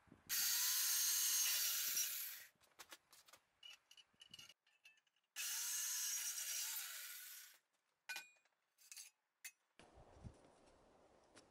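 Corded jigsaw with a metal-cutting blade cutting through steel square tube in two short bursts of about two seconds each, the motor winding up and slowing each time, as it severs the last tabs holding the cut-out. Scattered light clicks of handling come between the cuts.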